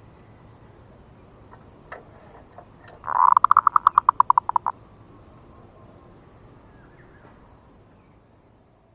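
Zebra dove (perkutut) lure bird calling: one rapid run of about fourteen quick notes lasting about a second and a half, a few seconds in.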